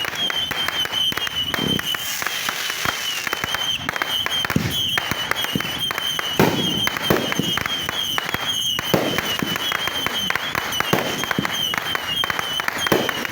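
Rapid-fire fireworks barrage: dense, continuous crackling and popping, with several louder bangs standing out, and a steady wavering high tone underneath.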